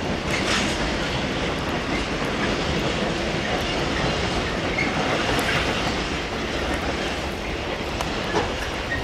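Freight train rolling past at steady speed, its wagon wheels running over the rails with a few sharp clicks.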